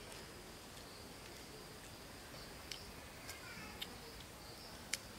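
Faint insect chirping outdoors: a high, thin trill that swells and fades in repeated pulses, under a few sharp clicks, the loudest near the end.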